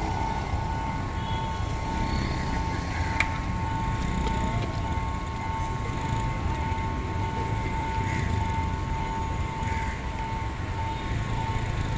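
Sri Lanka Railways S8 diesel-hydraulic multiple unit running: a steady low rumble with a constant whine, and one sharp click about three seconds in.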